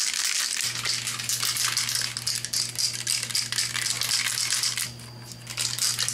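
Spray Max 2K clear coat aerosol can being shaken hard, its mixing ball rattling rapidly inside to mix the just-released hardener into the clear. The shaking pauses briefly near the end, then picks up again.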